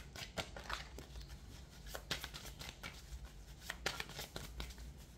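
A deck of reading cards being shuffled and handled by hand: irregular crisp snaps and slides of card stock, a few louder flicks among them.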